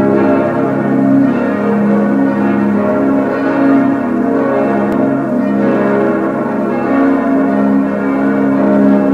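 Full peal of six bronze church bells cast by Schilling in 1958, tuned A♭–B♭–D♭–F–A♭–B♭, all swinging and ringing together. Their strikes overlap continuously into a dense, steady clangour.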